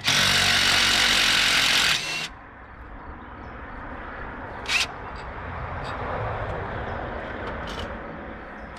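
A small power tool runs for about two seconds and then stops, followed by quieter handling noise from work on the truck's air-line clamps, with a sharp click about five seconds in.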